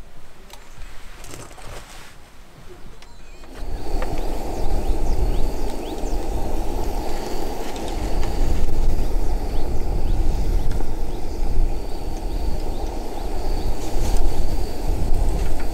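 Battered spring greens deep-frying in a pot of hot oil, a dense steady sizzle that starts suddenly about three and a half seconds in and keeps going.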